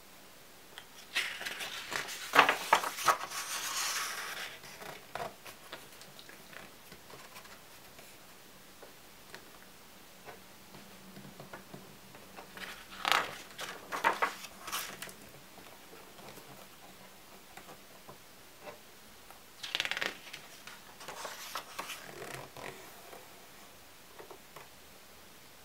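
Pages of a large hardcover photo album being turned by hand: three spells of paper rustling, about a second in, around thirteen seconds in and around twenty seconds in, with quiet between.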